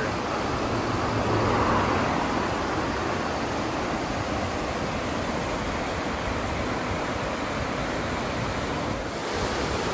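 Whitewater rapids of a rocky mountain river rushing steadily over boulders.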